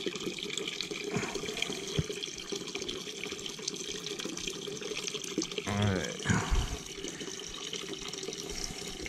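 Water running steadily from a steam boiler's open drain valve into a plastic bucket as the boiler is flushed of dirty, gunky water. About six seconds in, a short pitched sound rises over the running water.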